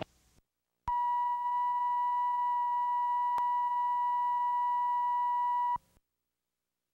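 Steady 1 kHz line-up tone, the reference tone that goes with television colour bars, played back from a VHS tape. It starts about a second in and cuts off abruptly near the end.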